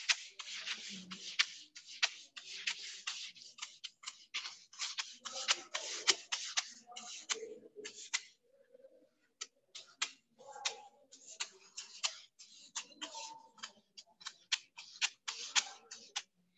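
Handheld eraser wiping a whiteboard in quick back-and-forth strokes, a dry rubbing hiss, with a short pause about halfway through.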